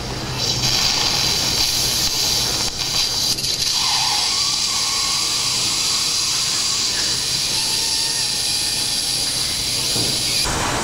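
Surgical suction tube drawing blood and fluid out of an open ankle-fracture wound: a steady hiss that starts about half a second in and cuts off abruptly near the end.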